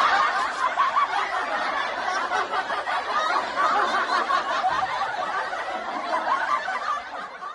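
A crowd of people laughing together, a laugh-track style sound effect, fading out near the end.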